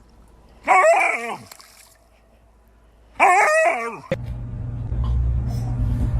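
A dog gives two loud, wavering cries, each under a second long and dropping in pitch at the end, about two and a half seconds apart. A steady low hum starts after about four seconds.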